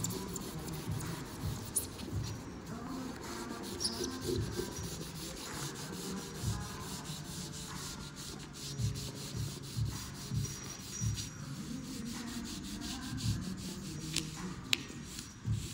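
A cloth in a gloved hand wiping along the edge of a replacement car windshield, in a run of irregular rubbing strokes.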